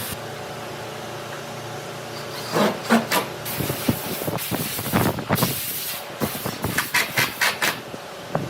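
Hand tools working wood: a run of short, sharp knocks and scrapes that starts a few seconds in and comes quicker near the end, at about three to four strokes a second, over a steady low hum.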